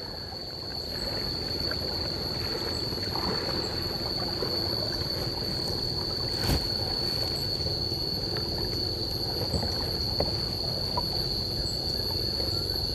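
Kayak on a river: water trickling and lapping around the hull under a steady high-pitched whine, with a single sharp knock a little past halfway.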